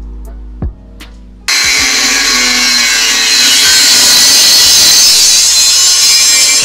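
Background music, then about a second and a half in an angle grinder's cut-off wheel starts cutting through rectangular steel tubing. It makes a loud, steady grinding hiss that runs on without a break.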